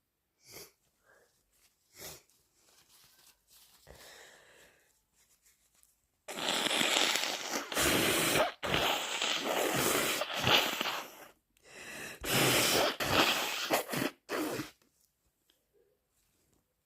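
A person with a bad cold blowing a congested nose, wet and snotty, in two long runs of hard blows broken by short pauses, the first beginning about six seconds in. Small sniffs come before them.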